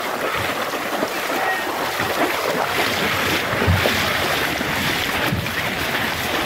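Several runners' feet splashing through ankle-deep floodwater, a continuous wash of splashing with scattered footfall thuds, and wind noise on the microphone.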